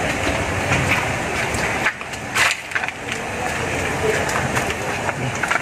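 Grapevine leaves and shoots rustling and crackling as they are handled, with one sharper crackle about two and a half seconds in.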